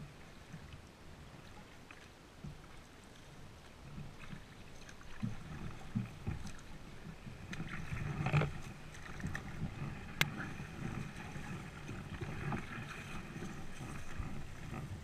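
A kayak being paddled: paddle strokes in the water with small knocks and rustles. It grows busier and louder about halfway through, with one sharp click a little later.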